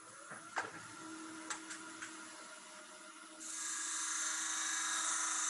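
Wood lathe running with a steady hum and a few light clicks. About three and a half seconds in, a turning tool starts cutting the spinning spalted-wood blank with a loud, steady hissing scrape as it dresses the top of the piece.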